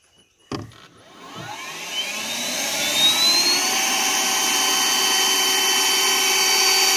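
The small boat's motor starting after a click, its whine rising in pitch for about three seconds, then running steady with a loud rushing hiss, and cutting off suddenly at the end.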